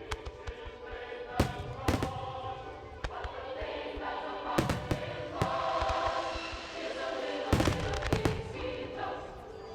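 Aerial fireworks shells bursting with sharp bangs, a few spread apart and then a quick run of several about three-quarters of the way through, over show music with choral singing played on loudspeakers.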